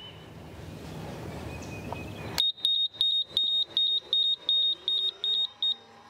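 Ghost Controls gate opener's control box beeping rapidly, high-pitched, about four beeps a second for roughly three seconds, while the first gate is jogged closed. Before the beeps, a steady hum grows louder, which is the operator arm's motor driving the gate.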